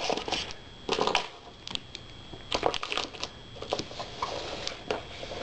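Packaging being handled and crinkled during unboxing: irregular rustles and crackles with small clicks and knocks, the loudest burst about a second in.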